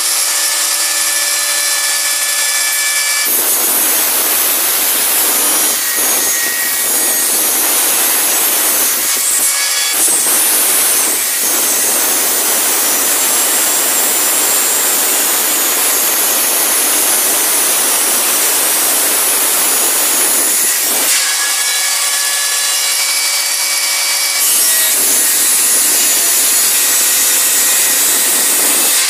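Angle grinder with a cut-off disc cutting a steel sheet-metal door panel. It spins free with a steady whine for the first three seconds, then cuts loudly from about three seconds in, eases back to the free-running whine around twenty-one seconds, and cuts again near the end.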